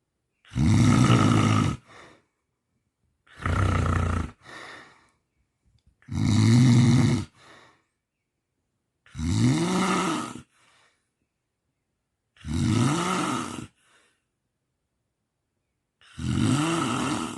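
A sleeping person snoring: six loud snores about three seconds apart, each lasting about a second. In several of them the pitch rises then falls, and most are followed by a short, fainter sound.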